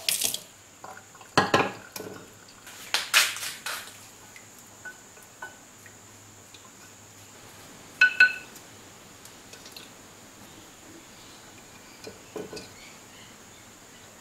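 A glass dish handled in a stainless steel sink: a few knocks and clinks as it is rinsed and set down, the sharpest a ringing double clink about eight seconds in, with light splashing.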